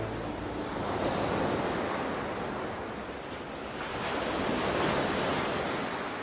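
Ocean surf washing onto a shore: a steady rushing noise that swells twice, about a second in and again around five seconds in, then fades.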